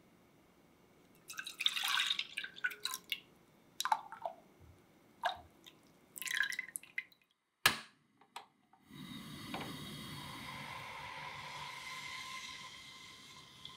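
Milk and whipping cream poured into a saucepan: several irregular splashing pours of liquid over the first seven seconds, then a single sharp click. From about nine seconds a steady hiss follows as the milk sits in the pan, fading slightly near the end.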